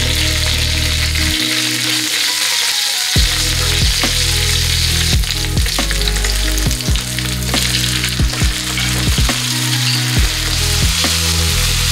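Hot oil sizzling steadily in a frying pan around cumin seeds, curry leaves, green chillies and ginger as the tempering fries, with sharp spatula taps and scrapes against the pan from about three seconds in.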